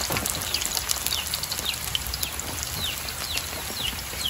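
Hot oil sizzling and crackling steadily as food deep-fries in a wok. A series of short falling chirps sounds over it.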